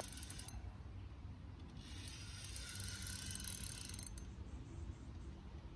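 Fishing reel working as a hooked fish is played: a fast mechanical ticking in spells of about two seconds with short pauses between.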